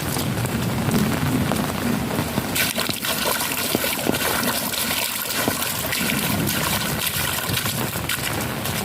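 Heavy rain falling steadily, with water running and splashing as it fills the puddles and fields.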